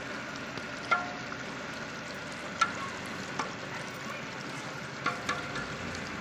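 Fish pieces sizzling in a large metal pot while a metal ladle stirs them. The ladle knocks and scrapes against the side of the pot a handful of times.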